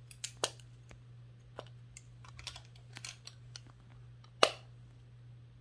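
Silicone simple dimple fidget's bubbles being pushed in, giving small irregular clicks, several times, with one louder click about four and a half seconds in.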